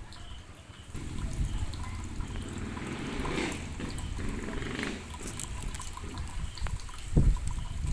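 Water trickling and dripping, with two short low thumps near the end.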